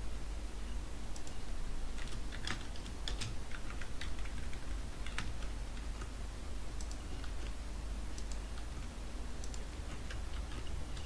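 Computer keyboard typing in short, irregular bursts of key clicks, over a steady low hum.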